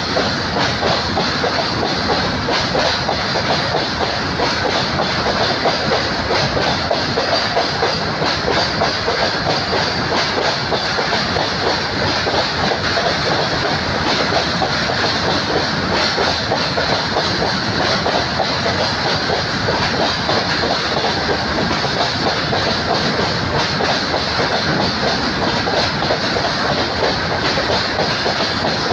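Passenger train coaches rolling past at steady speed, with a continuous clickety-clack of wheels over the rail joints.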